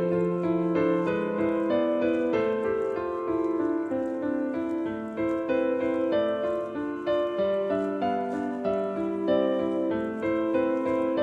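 Background music: a gentle piano piece, a steady run of notes.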